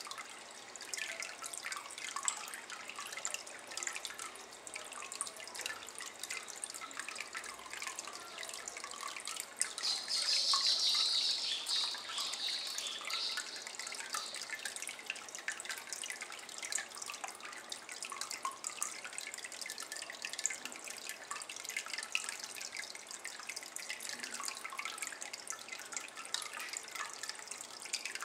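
A thin stream of water pattering and dripping into a shallow ceramic basin of water, a steady run of small irregular splashes. About ten seconds in, a louder high hiss rises over it for a few seconds.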